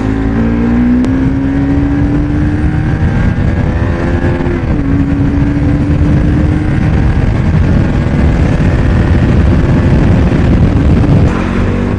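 Bajaj Pulsar 200NS single-cylinder engine pulling the bike up to speed, its pitch climbing, then dropping at an upshift about four and a half seconds in, then running steady at cruising speed. Wind rushes heavily over the microphone throughout.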